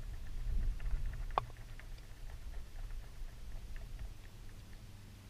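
Wind rumbling on the microphone, fading after about two seconds, with light clicks of a fork against a metal frying pan and one sharp clink about a second and a half in as the pan is handled and set down on rock.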